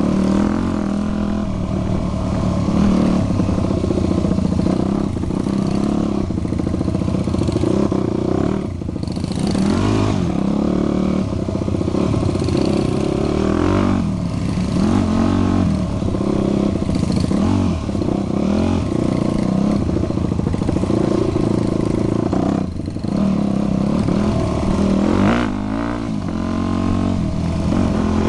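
Yamaha WR dirt bike engine heard from on board, revving up and down on and off the throttle through the turns, with brief drops as the throttle is shut off.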